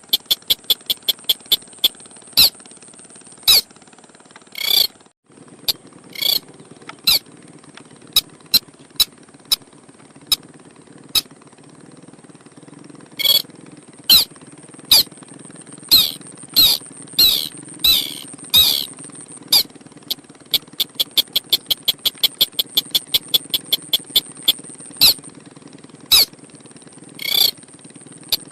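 A crake (burung sintar) calling: short, sharp notes repeated in even series of about two or three a second, with a cluster of quicker calls in the middle, over a steady high hiss.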